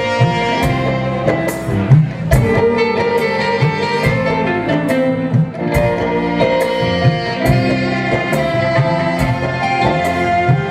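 Live dangdut band playing an instrumental passage: melodic instruments over a steady, even drum beat, with a falling pitch slide about four seconds in.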